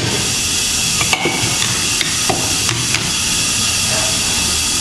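Pneumatic SST screen re-stretching clamps being opened by hand, their lever handles giving about six short metal clicks and knocks over a few seconds. A loud, steady hiss runs underneath.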